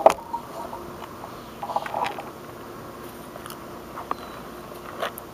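Camera handling: a sharp click at the start, then scattered light crackles and ticks, bunched about two seconds in.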